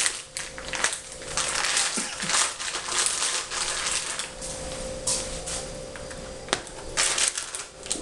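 A plastic piping bag crinkling and rustling in irregular bursts with sharp crackles as it is handled, over a faint steady hum.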